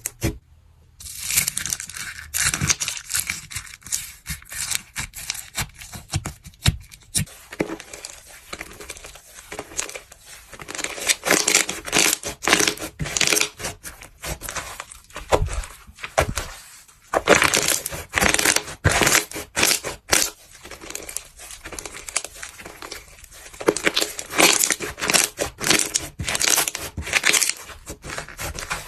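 Crunchy ASMR material crushed and squeezed by hand, giving dense crackling and crunching in repeated bursts with short pauses, the first about a second in.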